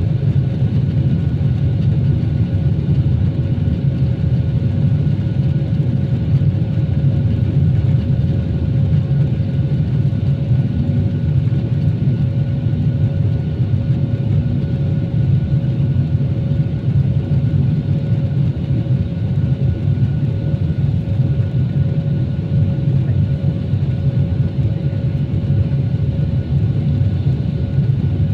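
An Airbus airliner's jet engines heard from inside the passenger cabin: a steady low rumble with a constant tone on top.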